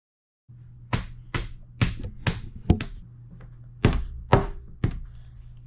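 A run of sharp taps on a hard surface, eight strikes in two bursts, five then three, about two a second. A steady low hum runs underneath.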